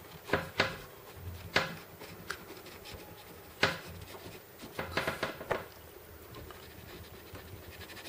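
Small Victorinox ballpoint pen writing on lined paper: faint scratching of the pen tip, with a few sharp ticks scattered through it.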